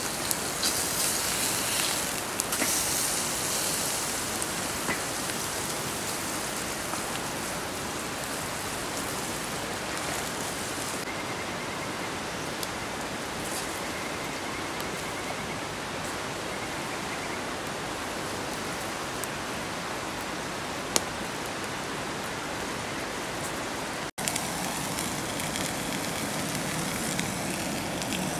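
Steady rain falling, with a few sharp single drop hits standing out. About 24 seconds in it cuts off for an instant, and a different steady noise with more low rumble follows.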